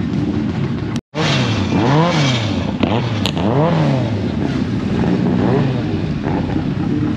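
Proton Putra's engine revved in several throttle blips, its pitch rising and falling each time, over a steady engine rumble. The sound drops out briefly about a second in.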